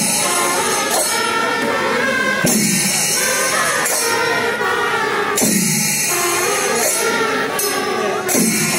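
Music: a sung melody over percussion, with the same phrase repeating about every three seconds.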